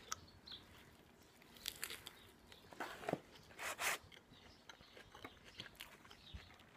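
Someone biting into and chewing a burger: soft, quiet mouth sounds with a few short bursts of crunch and rustle about two, three and four seconds in.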